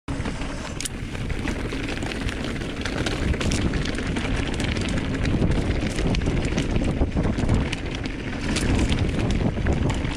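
Mountain bike riding down a rough dirt trail: wind buffeting the camera's microphone, with a rumble of tyres on dirt and rocks and many sharp rattles and knocks from the bike over bumps.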